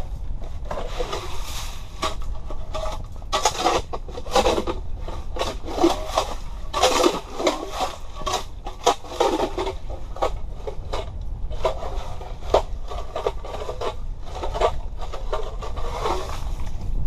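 Irregular scraping and crunching strokes on ice, heaviest in the middle, over a steady low rumble of wind on the microphone.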